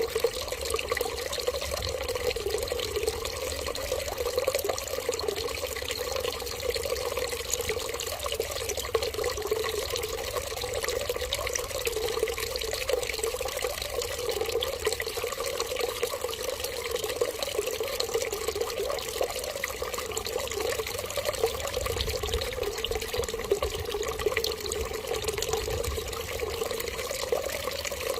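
Water running steadily in one continuous stream, like a tap left running, with no pauses or changes.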